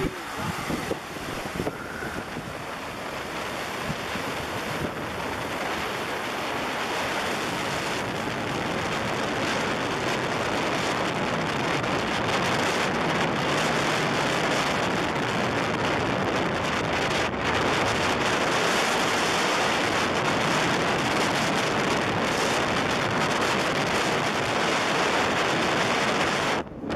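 Steady rushing wind noise on the microphone of a moving ATV, building over the first several seconds and then holding steady, with a brief drop near the end.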